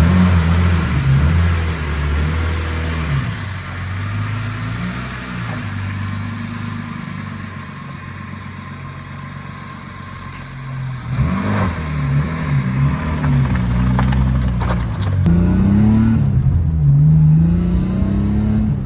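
BMW E30's engine running as the car pulls away and drives off, its pitch rising and falling as it accelerates and shifts. It eases off through the middle, then picks up and revs again about eleven seconds in.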